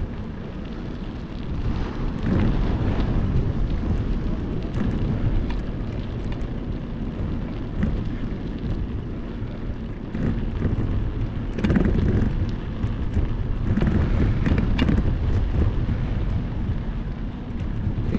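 Wind buffeting the microphone of a camera riding along on a bicycle, mixed with tyre and road noise on the asphalt and a few short knocks from bumps.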